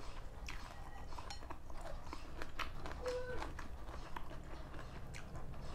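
Close-up eating sounds: chewing noodles and green onions with small crunches and mouth clicks, and a metal spoon clinking and scraping in the bowl.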